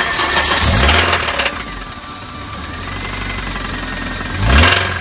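Toyota 2ZZ four-cylinder engine running with a fast metallic ticking and clattering, revved up briefly twice, about half a second in and again near the end. The noise is the sign of a failed crankshaft bearing.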